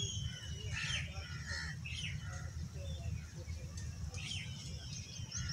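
Several short bird chirps scattered over a steady low rumble of breeze on the microphone.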